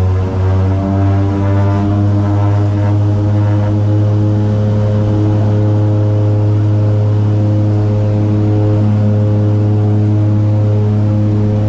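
The turboprop engines and propellers of a de Havilland DHC-6 Twin Otter, heard from inside the cabin, running with a steady low drone. A throbbing beat at the start evens out as the pitch rises slightly over the first few seconds, then holds steady.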